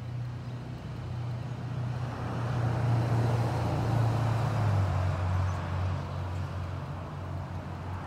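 A car driving past: a low engine hum and tyre noise swell to a peak about halfway through, the engine's pitch drops as it goes by, and the noise then eases off.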